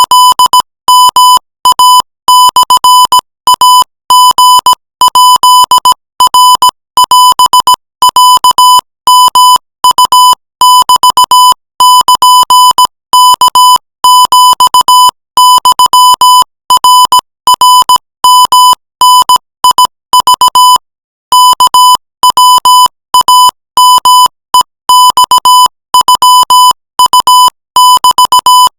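Morse code sent at 20 words per minute: a single steady tone near 1 kHz keyed on and off in dots and dashes, spelling out Thai-language text. The keying pauses briefly about two-thirds of the way through.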